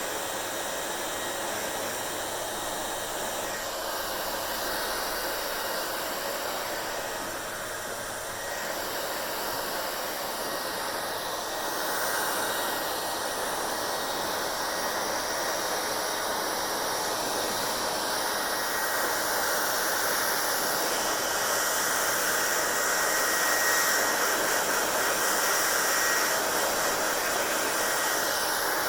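Hair dryer blowing steadily with a faint high whine from its motor. The airflow noise shifts and gets louder about twelve seconds in.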